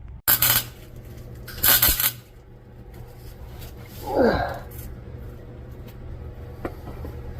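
Two short bursts of crackling hiss from tack welds on steel exhaust tubing, over a steady low hum, with a brief falling squeal about four seconds in.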